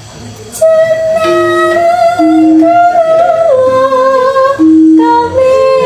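Javanese-style singing: a voice holds long, slightly wavering notes that step from pitch to pitch, over shorter steady lower instrument notes. The music starts about half a second in.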